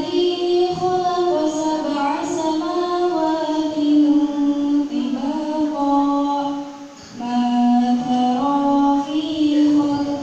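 A woman's solo voice, unaccompanied and amplified through a handheld microphone, singing or chanting in long held notes that step up and down in pitch, with a short breath pause about seven seconds in.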